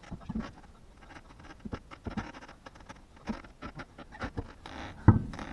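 Heavy Unimog wheel being worked onto the hub studs: irregular scrapes, clicks and knocks of metal on metal, with a louder clunk near the end.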